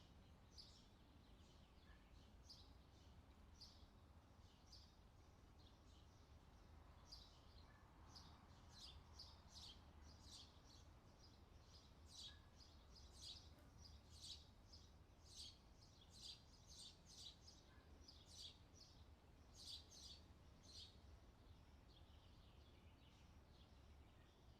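Faint outdoor summer ambience: small birds chirping in short, high notes, scattered irregularly throughout, over a low steady rumble.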